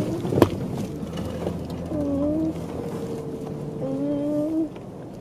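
Jeep crawling over a rocky off-road trail, heard from inside the cabin: a steady low engine hum, a sharp knock about half a second in, and several drawn-out creaks from the body and suspension as it flexes over the rocks.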